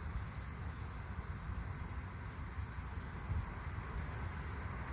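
Steady cricket chorus, a constant high shrill, over a low rumble.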